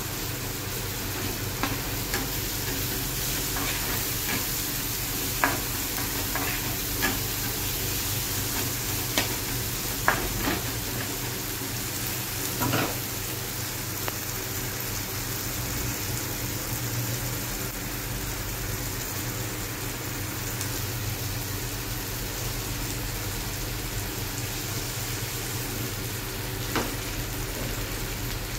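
Onion-tomato masala sizzling steadily in a pan while a metal spatula stirs it, with sharp clicks of the spatula knocking against the pan, mostly in the first half.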